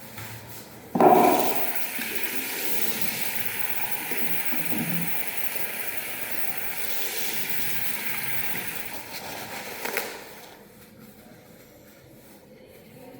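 Water running in a steady rush, starting with a clunk about a second in and stopping about ten seconds in.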